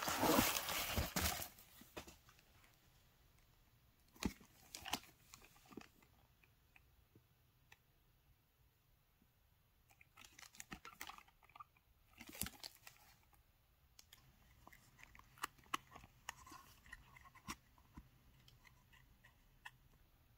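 Plastic bubble-cushion packing crinkling and crackling as a hand rummages through it, loudest in the first second or so. After that come quieter, scattered rustles and light taps as small boxed products are picked up and set down.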